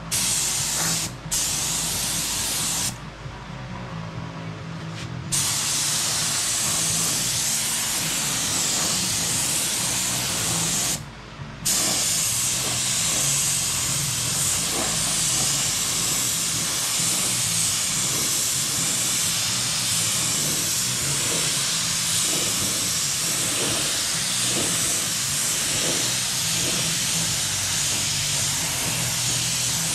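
Gravity-feed air spray gun spraying paint, likely a light tack coat, with a steady hiss of air and atomised paint. The hiss breaks off briefly about a second in and again around eleven seconds in, and dies down for a couple of seconds between about three and five seconds in.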